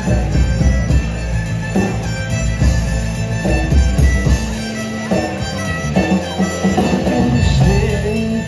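Live band playing an instrumental passage, with bass and drums under a pitched melody line.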